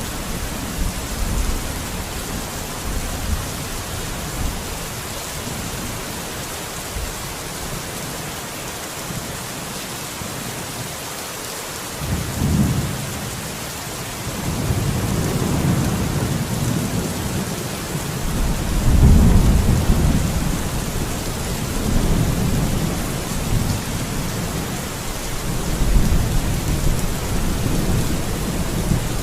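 Steady rain with thunder. Low rumbles roll in about twelve seconds in, then swell and fade several times, loudest a little past the middle.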